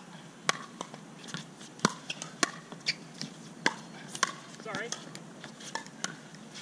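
Pickleball paddles striking a plastic ball in a rally, a series of sharp hollow pocks roughly every half second to second, with fainter hits and court footsteps between them. A brief squeak comes about two-thirds of the way through.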